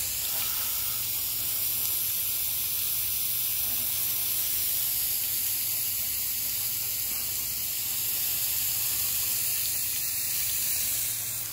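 Garden hose with a spray nozzle shooting a steady stream of water onto a wooden deck and its railing, a continuous high hiss of spray and splashing. The deck is being soaked with plain water so that soft-wash chemical running off the roof does no damage.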